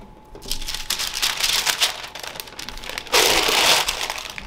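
Parchment paper crinkling and rustling as the scored sourdough loaf is lifted on it into a Dutch oven, loudest for about a second around three seconds in.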